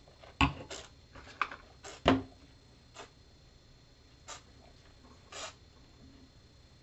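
A wine taster's mouth noises: a series of short, irregular slurps as wine is drawn into the mouth and air sucked through it, the loudest about half a second and two seconds in.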